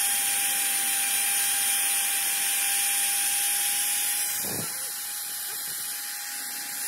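Electric hand drill boring a small hole into a piston's ring groove: a steady whine with a hiss of cutting. About four seconds in, the bit comes out of the metal and the drill runs on more quietly, with a low thump just after.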